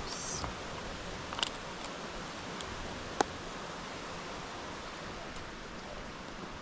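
Steady, even rushing hiss of outdoor noise, broken by a few light clicks, with the sharpest click about three seconds in.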